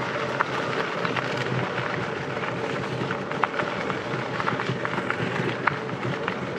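Steady running noise of a slow-moving vehicle: a low hum under an even rush of road and wind noise, with a few scattered light clicks.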